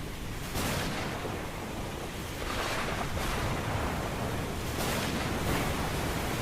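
Ocean surf: waves washing in over a steady rushing background, with swells of hiss about half a second in, around three seconds in and about five seconds in.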